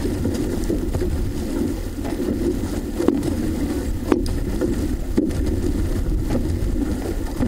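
OC-6 outrigger canoe under paddle: a steady low rush of water and wind on the boat-mounted camera, with sharp knocks about once a second from the paddle strokes.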